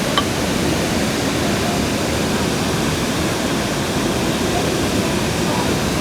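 Steady rushing noise of falling water, with one small click just after the start.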